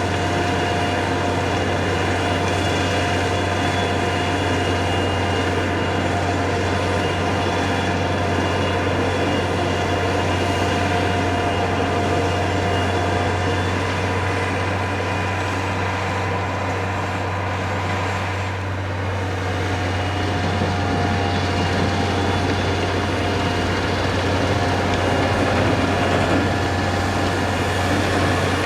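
A heavy vehicle running steadily, with a strong low hum and a dense mechanical noise that eases slightly about two-thirds of the way through.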